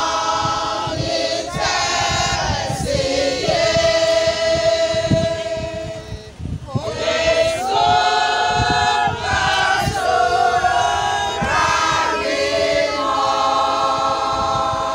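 Women's choir singing a hymn in sustained phrases, with a short break for breath about halfway through.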